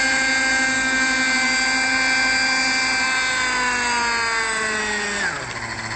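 Radio-controlled model helicopter's motor and rotor whining steadily, then falling in pitch once it sets down on its skids, with a sudden drop about five seconds in as it winds down.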